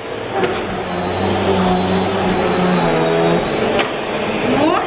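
Bissell PowerForce Helix Turbo upright vacuum cleaner running with a steady high motor whine. It is switched off near the end, and the whine starts to fall as the motor spins down.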